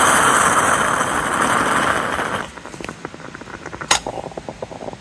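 A loud steady rushing hiss cuts off about two and a half seconds in. It leaves the irregular crackle and pops of a freshly lit Swedish fire log burning, with one sharp pop near four seconds.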